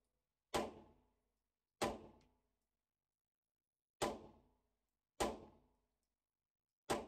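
Five 9mm pistol shots from a Browning Hi-Power, each a sharp crack with a short echoing tail from an indoor range. They come as two pairs about a second apart, then one more near the end.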